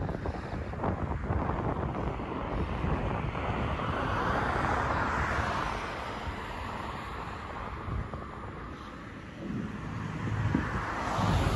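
Wind gusting against the microphone over road traffic on the bridge, with a vehicle passing, swelling and fading, around the middle.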